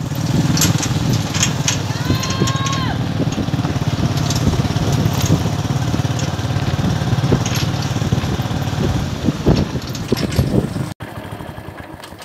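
Small engine of a farm vehicle running steadily as it drives along a dirt road, with a dense low pulsing. A brief high call that rises then levels off sounds about two seconds in, and the engine sound stops abruptly near the end.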